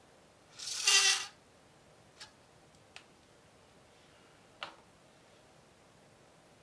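Dental floss zipping out of its plastic dispenser in one quick pull about half a second in, followed by a few faint clicks as the dispenser and floss are handled.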